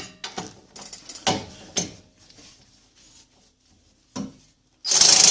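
Metal clinks and knocks as a socket and impact wrench are fitted onto a 17 mm hub-assembly bolt. Near the end the impact wrench starts hammering loudly on the bolt, which does not break loose.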